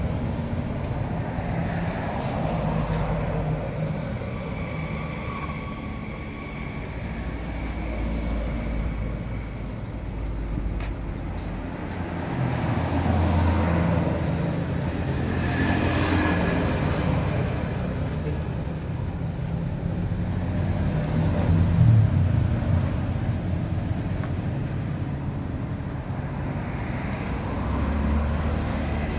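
Motor vehicle engines and road traffic, with engine pitch shifting every few seconds.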